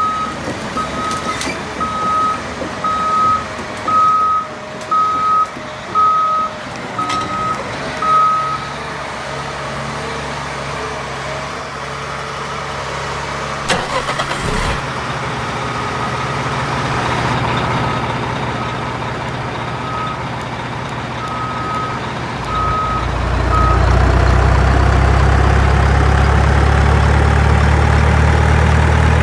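Truck reversing beeper sounding in a steady series, a little faster than one beep a second, over a running truck engine. The beeping stops, then returns more faintly; about 23 s in the engine gets much louder and settles into a steady idle.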